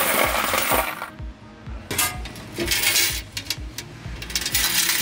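Coins, mostly quarters, sliding and clinking as a vending machine's metal coin box is tipped out into a cardboard collection box. They come in several spills, with background music that has a steady beat.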